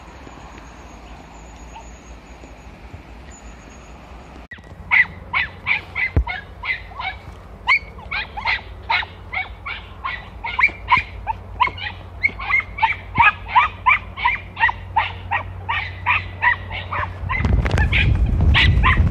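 Young podenco hunting dogs barking in a rapid run of short, high yelps, about two to three a second, starting about five seconds in: hounds giving tongue as they work game in bramble cover. A low rumbling noise comes in near the end.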